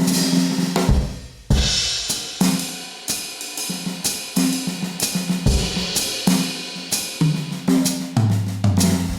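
Medeli MZ928 electronic drum kit played through one of its sound kits: a steady groove of kick, snare, hi-hat and cymbal, with a run of lower-pitched drum hits near the end.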